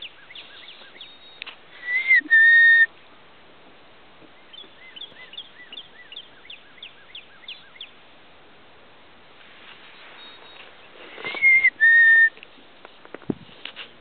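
A man whistles a two-note call twice, a short rising note followed by a steady lower one, calling to the birds. Between the two calls a bird gives a faint quick series of short chirps, about three a second. Near the end there is a single thump.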